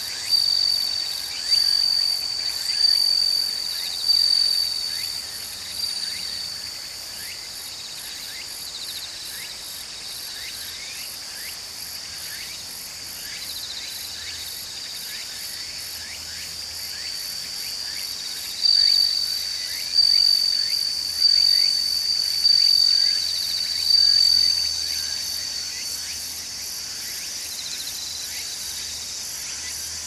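A steady high-pitched chorus of autumn insects chirring. A louder pulsing song rises sharply and fades about every second and a quarter, in a run of five at the start and another run of five about eighteen seconds in.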